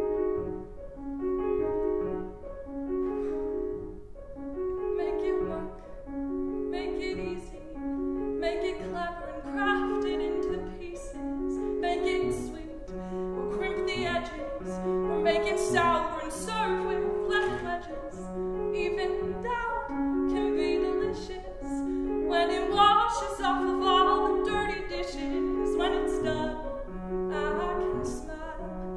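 A solo female voice sings a musical-theatre song, accompanied by a grand piano playing a steadily repeating figure.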